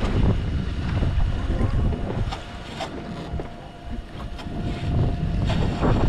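Wind noise rumbling on the microphone aboard a fishing boat, with several sharp clicks and knocks and a faint steady whine that comes in about halfway through.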